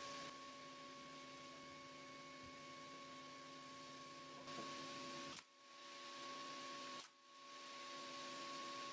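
Faint, steady electrical hum made of several fixed tones over a light hiss, with two faint clicks about halfway through, a second and a half apart.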